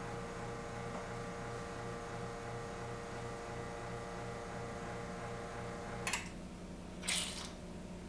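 Faema two-group espresso machine humming steadily while a shot pours. About six seconds in the hum stops with a click as the shot is stopped, and a second later there is a short hiss, the group releasing its pressure.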